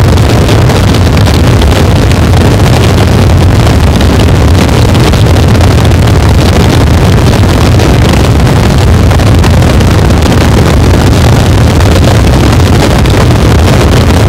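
Harsh noise wall: a loud, unchanging wall of crunchy electronic noise, heaviest in a deep low rumble, with no rhythm, melody or breaks.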